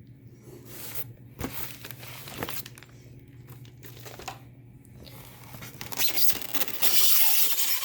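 Packaging being handled and pulled out of a box: irregular crinkling and rustling, loudest and most continuous in the last couple of seconds.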